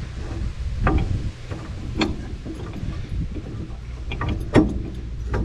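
A few sharp metal clicks and knocks as the hitch pin is worked into place in an aluminium gooseneck hitch, the loudest near the end, over a low rumble of wind on the microphone.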